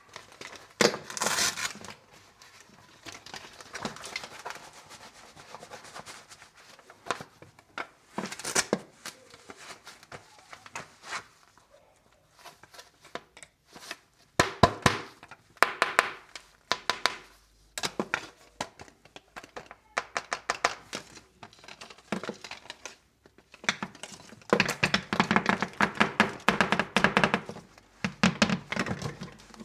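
Hands handling a pair of new motorcycle gloves and their packaging: irregular crinkling, rustling and light knocks in separate bursts with short pauses, busiest near the end.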